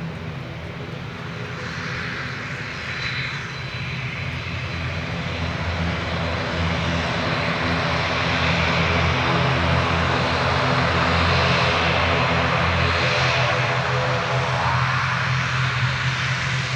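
An ATR 72-600's twin Pratt & Whitney PW127M turboprop engines running, with a steady low propeller drone under a broad hiss. The sound grows steadily louder as the aircraft comes closer.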